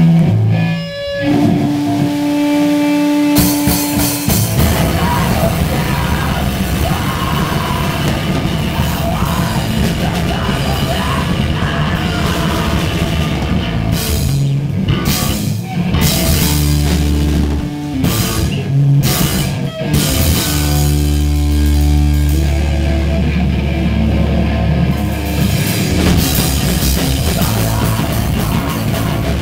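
Crust punk band playing live at full volume, a drum kit driving the full band. A single held note rings alone for the first few seconds before the whole band comes in about four seconds in.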